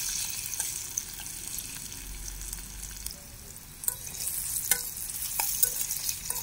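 Sliced onions and green chillies sizzling in hot oil in a steel pan while a metal spoon stirs them, with a few sharp clicks scattered through.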